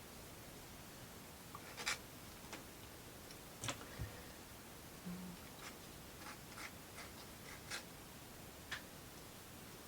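Small plywood model-kit parts being handled and fitted together by hand: a scatter of light clicks, taps and scrapes over a quiet background.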